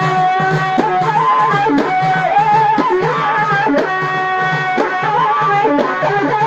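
Allaoui folk music: a bending, ornamented lead melody over a steady low drone, with drum strokes keeping the rhythm.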